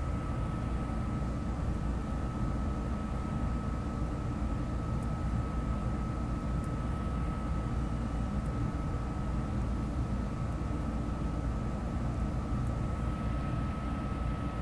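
Interior noise of a SEPTA Market-Frankford Line el train car: a steady low rumble with a constant high-pitched tone over it.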